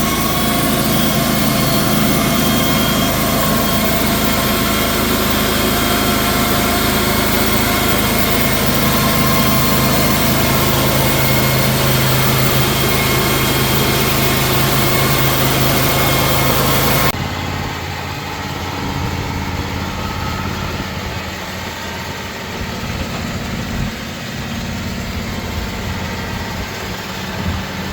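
Portable band sawmill's engine running steadily with several steady tones, then an abrupt change about 17 seconds in to a quieter engine sound.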